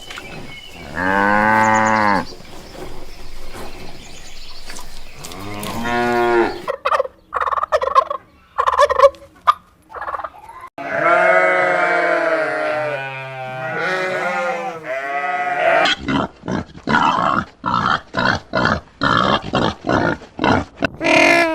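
Cattle mooing: several long, low calls, with choppier sounds between them and a fast run of short, repeated animal calls near the end.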